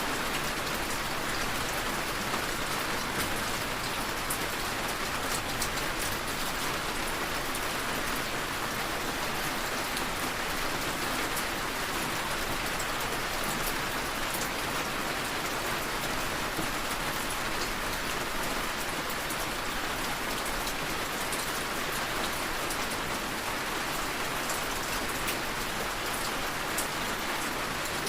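Steady rain falling, a continuous even hiss with fine drop ticks and no thunder.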